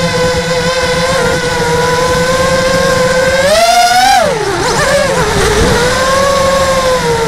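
Model aircraft's motor and propeller heard from an onboard camera: a steady high whine over wind rumble. Its pitch climbs about three and a half seconds in, then drops and wavers for a second or so before settling back.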